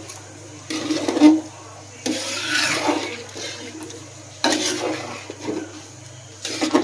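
Metal spatula stirring thick meat curry in a large metal pot: four separate strokes of scraping and squelching, a second or so apart, over a steady low hum.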